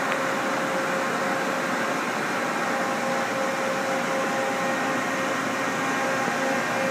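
Steady background hum of a machine shop: an even whirring noise with a faint constant tone running through it.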